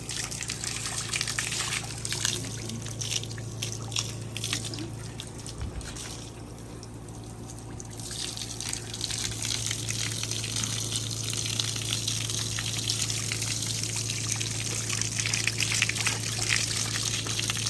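Water from a garden hose spraying and splashing while a miniature horse is washed. The spray thins out about six seconds in, then runs steadily again.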